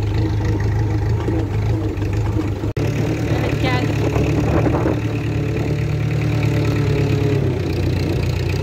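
Engine running steadily at an even low pitch, broken off abruptly for an instant about three seconds in before it carries on.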